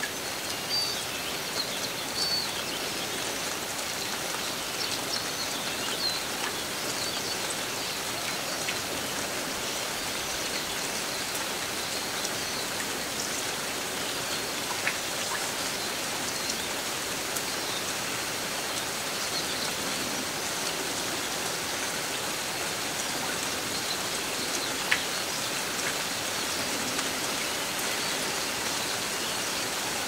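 Steady summer rain, with many small drops ticking. A bird chirps briefly a few times, mostly in the first seconds, and one sharper click comes about 25 seconds in.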